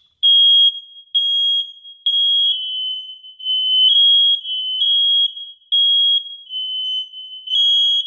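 First Alert hardwired smoke detector sounding its test alarm: loud, high-pitched beeps in groups of three with a pause between groups, set off by holding the test button. A second, slightly lower-pitched alarm sounds along with it, out of step, from the interconnected detector downstairs.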